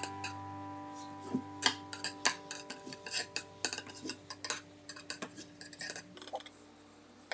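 Irregular light clicks and clinks of a knife and a ceramic cake plate being handled on a tabletop, over soft background music that slowly fades.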